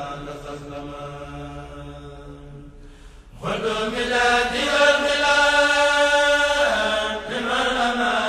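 Arabic religious poem chanted in long, drawn-out held notes. The chant fades and breaks off about three seconds in, then comes back louder.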